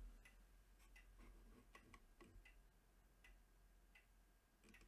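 Faint, irregular clicks of a computer keyboard and mouse in use, roughly two a second, over near silence.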